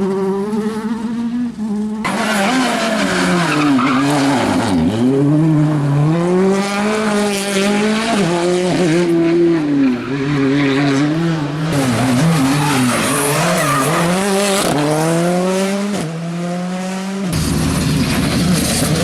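Rally car engine revving hard, its pitch climbing and dropping again and again as the car accelerates and brakes. About 17 seconds in, the engine tone cuts off abruptly and a rushing noise takes over.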